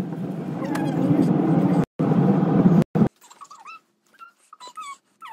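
Steady low road and engine rumble inside a moving car's cabin, cutting off about three seconds in. The rest is much quieter, with a few short, high, whining cries.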